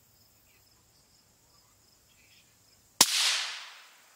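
A single 5.56 mm rifle shot, the last M855A1 round of the string, fired about three seconds in; its sharp crack is followed by an echo that fades over about a second.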